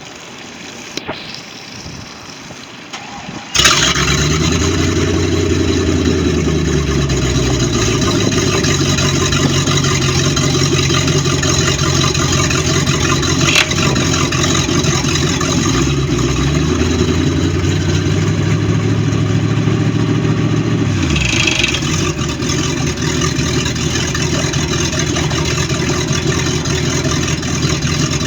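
MerCruiser 5.7 litre V8 sterndrive engine starting about three and a half seconds in, then running with its speed raised and lowered several times before dropping back to idle near the end. The engine has a knocking noise.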